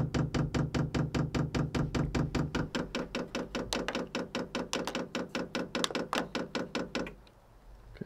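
Diesel heater fuel dosing pump ticking rapidly and evenly, about five clicks a second, as it primes the fuel line in manual fuel-filling mode. The ticking stops about seven seconds in.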